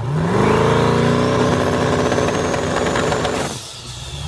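Car engine revved up and held at high revs for about three seconds, with a high whine climbing in pitch over it. Near the end it drops back to idle.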